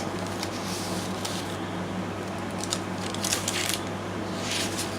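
Paper pages and pockets of a handmade junk journal rustling and crinkling as they are handled and turned, in brief crisp bursts, with a cluster of rustles a bit past the middle, over a steady low hum.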